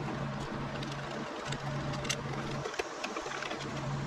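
Hand screwdriver turning screws out of a car radio's metal mounting bracket, giving scattered light metallic clicks and scrapes over a steady low hum.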